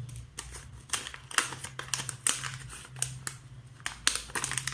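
Packaging of a small soil moisture sensor module being opened and handled by hand: irregular clicks and crinkles, several a second, over a faint steady hum.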